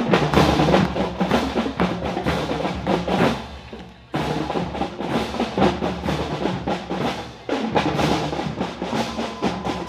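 Marching band drumline playing a marching cadence, a steady rhythm of drum hits. The sound dips and comes back abruptly about four seconds in and again about three seconds later.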